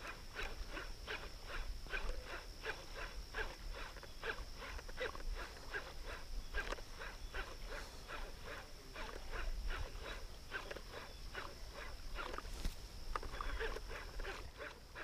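Big topwater musky tail bait being reeled across calm water, its tail slapping and churning the surface in a quick, even rhythm of about three to four splashes a second.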